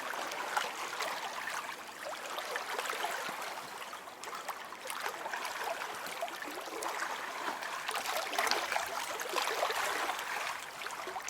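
Lake water gently lapping and trickling: a continuous wash of small splashes that swells and eases without stopping.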